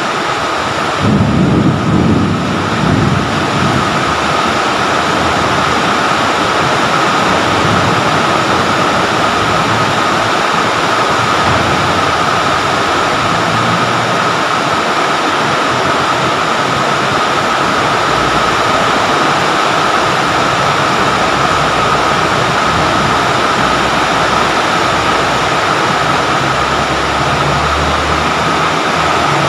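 Steady rain falling on tree and shrub leaves, an even hiss with a steady tone held underneath. A short low rumble comes about a second in.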